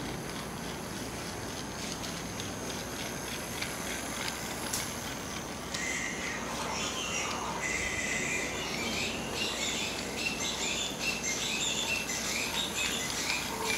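Battery-powered toy high-speed train running around a loop of plastic track, its small motor humming with light clicking from the wheels and track joints. From about six seconds in, birds chirp rapidly and continuously over it.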